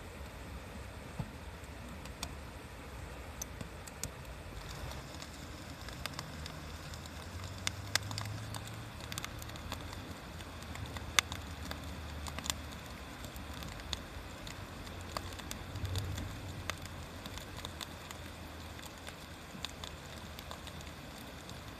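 Wood fire crackling, with frequent sharp pops scattered irregularly over a low rumble.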